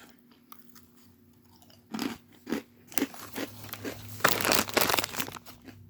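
Someone biting and chewing Vega plant-based protein crisps, baked pea- and rice-protein chips with a popped texture and a moderate crunch. A few separate crunches come about two seconds in, then a dense run of crunching near the end.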